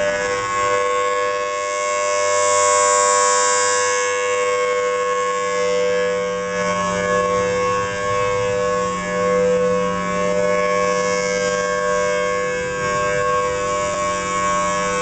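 Federal Signal Thunderbolt 1003 outdoor warning siren sounding a steady-pitched tone, the steady alert signal, swelling and fading in loudness every few seconds as the siren head rotates.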